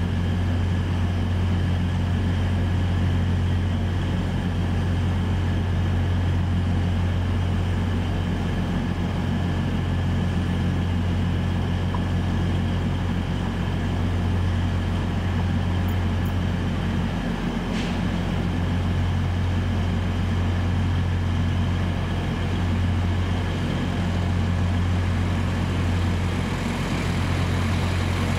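Northern class 195 diesel multiple unit running slowly into the platform on its underfloor diesel engines: a steady low engine hum with a few fainter higher tones over it. A short click about 18 seconds in.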